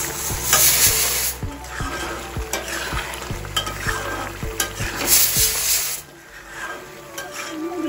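A flat metal spatula stirs thick eel curry in a metal kadai, scraping and knocking against the pan while the gravy sizzles. There are two louder spells of scraping and sizzling, about half a second in and around five seconds, and it quietens after about six seconds.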